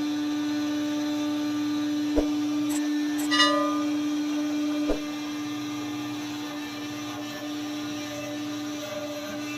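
Steady whine of a sawmill machine's motor, with a few short knocks about two to five seconds in.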